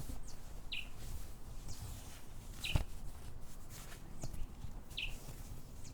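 A bird chirping: short single falling chirps about once a second, over a steady low rumble, with one sharp click near the middle.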